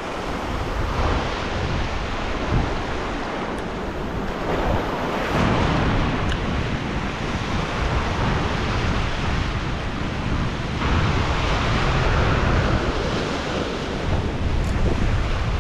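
Surf breaking over a rocky shoreline reef and washing through the rocks, swelling and easing with each wave, with wind buffeting the microphone.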